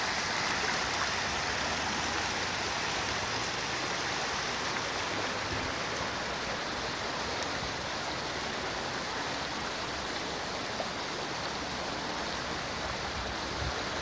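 Shallow mountain river (the Silinka at low water) rushing over a stony bed: a steady rushing and babbling of water, a little softer after the first few seconds.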